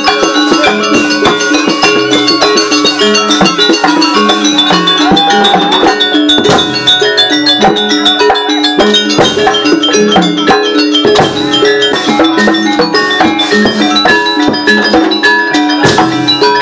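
Live Jaranan Buto gamelan music played acoustically, without a sound system: struck metallophones ringing over drums in a steady, fast rhythm.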